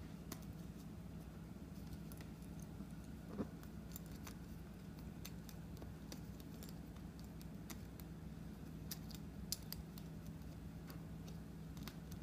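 Light steel chain and metal rings of a homemade chain crampon clinking in small, irregular clicks as they are handled and pulled across a boot sole, two clicks louder than the rest, over a steady low hum.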